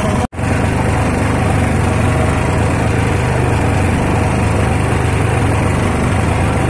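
Small fishing boat's motor running steadily at speed, with water rushing along the hull. The sound cuts out for an instant shortly after the start, then carries on unchanged.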